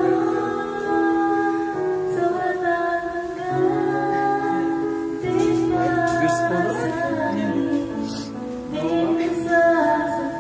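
A young woman singing a slow Filipino pop ballad into a microphone over backing music, holding long notes.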